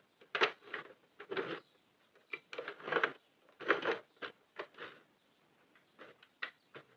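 Yarn being wrapped around and drawn across the plastic needles of a Sentro 48-needle knitting machine: irregular short rustles of yarn and handling, with a few light plastic clicks.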